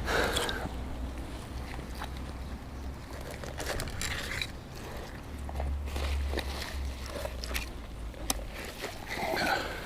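Wind rumbling on the microphone, with scattered small clicks, knocks and rustles from handling a magnet-fishing catch: a plastic bag pulled from the canal.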